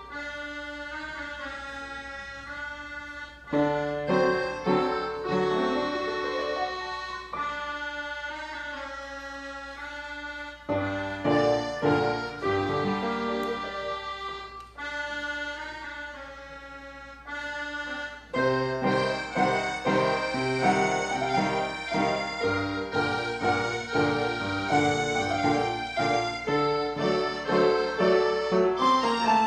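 Instrumental music: held chords that change every few seconds, turning about eighteen seconds in to a brisker, rhythmic run of short notes.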